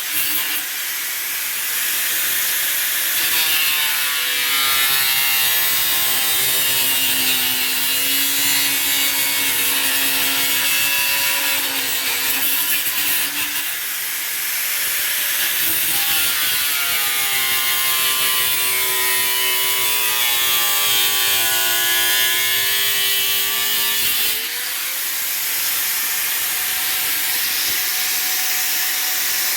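Angle grinder with a cutting blade running under load as it cuts through plastic, its motor whine sagging and recovering in pitch as the blade bites. The sound eases briefly twice, about 14 and 24 seconds in.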